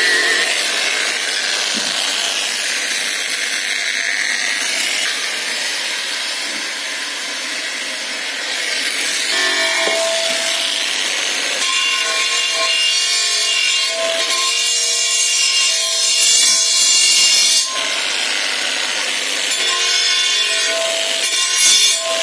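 Angle grinder with a rubber-backed abrasive disc sanding down the weld on a cast aluminium wheel rim: a steady motor whine under the hiss of the disc rubbing the metal. The whine comes through more sharply in the second half.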